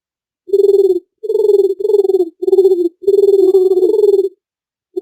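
A dove cooing: a run of low, repeated coos, about half a dozen in quick succession, starting about half a second in.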